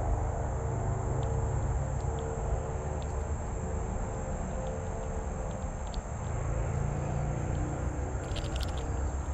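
Outdoor creekside ambience: a steady low rumble under a constant high insect drone, with a few light clicks near the end.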